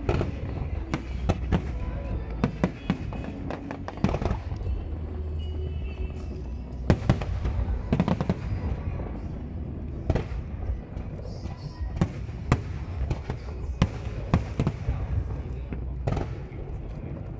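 Aerial firework shells bursting: a close run of bangs in the first four seconds, then single loud booms every second or two, over a steady low rumble.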